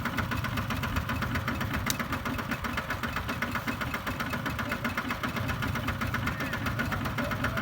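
Diesel engine of a two-wheel walking tractor running steadily, with a rapid knocking chug.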